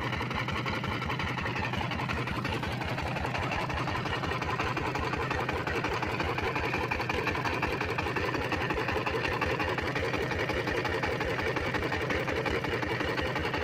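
Single-cylinder diesel pump engine running steadily, with an even, fast beat of firing pulses.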